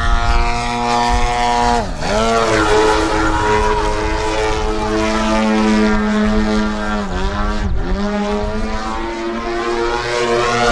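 AJ Laser 230 radio-control aerobatic airplane's engine and propeller running steadily in flight. Its pitch drops sharply and climbs back twice, about two seconds in and again near eight seconds.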